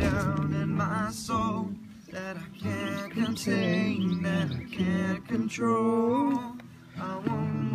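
A group singing a song together to an acoustic guitar, voices holding long notes with vibrato.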